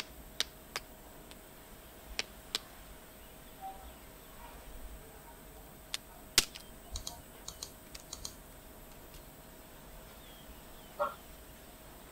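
Dry twigs and grass crackling and snapping as sticks are laid on a small, freshly lit campfire: scattered sharp snaps, with a quick run of them a little past the middle.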